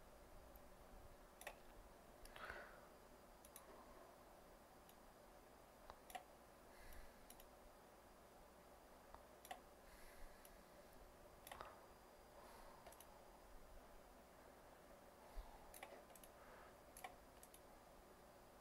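Near silence with faint computer mouse clicks, a dozen or so, scattered irregularly every second or two.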